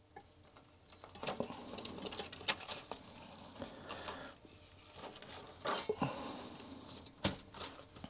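Hands handling the parts of a disassembled Amiga 1200 keyboard: scattered light clicks, taps and rustling of plastic and metal pieces, a few of them sharper.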